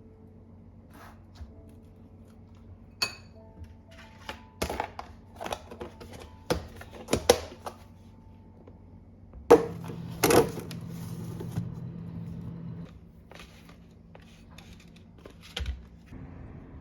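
Objects being handled and set down: an irregular run of sharp clicks and knocks, loudest a little before the middle, with a low steady hum for a few seconds after the loudest knock and quiet background music under it.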